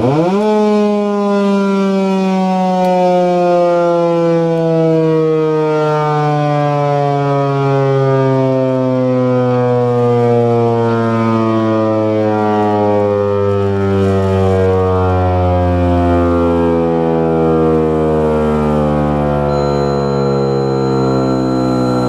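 American Signal Corporation T-128 tornado siren sounding: one loud tone with many overtones starts abruptly, then slides slowly and steadily down in pitch as the rotor winds down.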